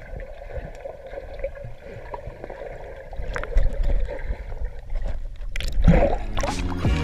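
Muffled underwater sound of a swimmer in a pool, heard through an action camera held underwater: water sloshing and bubbling, louder after about three and a half seconds, with splashing near the end as the camera nears the surface. Background music comes in shortly before the end.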